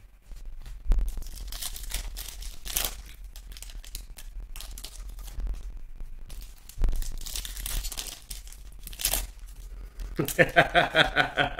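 Foil wrappers of football card packs crinkling and being torn open by hand, in two main stretches of tearing.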